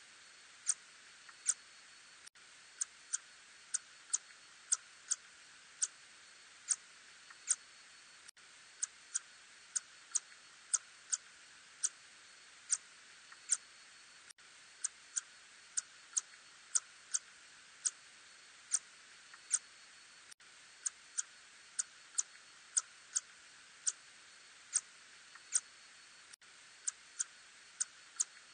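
Little tube-nosed bat calls made audible, heard as short sharp clicks at uneven spacing, roughly one or two a second, over a steady hiss.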